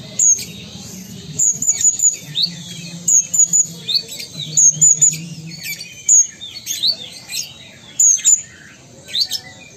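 Caged kolibri ninja sunbird (konin) in full song: quick clusters of sharp, high chirps and short slurred notes repeated throughout.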